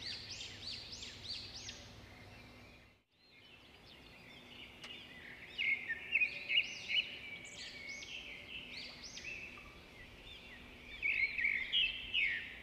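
Birds chirping and twittering: a continuous run of quick chirps that rise and fall in pitch, with a short break about three seconds in.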